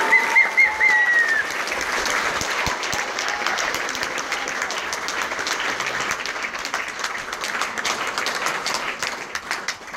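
Audience applauding, dense clapping that slowly thins out, with a high wavering call rising over it near the start.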